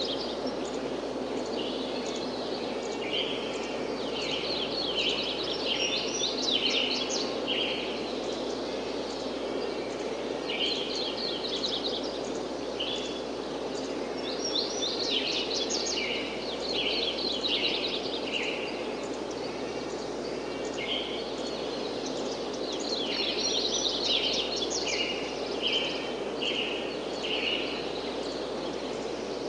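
Birds singing in repeated bursts of quick, high chirping notes every few seconds, over a steady rushing wind.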